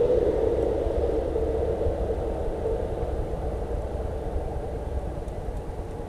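A passing vehicle's steady rumble with a held hum, slowly fading away as it recedes.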